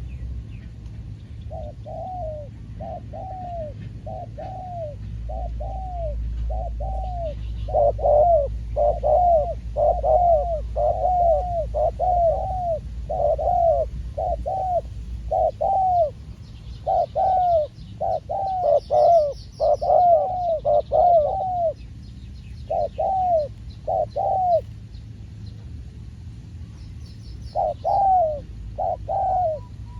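Spotted doves cooing: a long run of short, arched coo notes, about two a second, breaking off briefly a few times and starting again near the end. Faint high chirps of small birds come in around the middle.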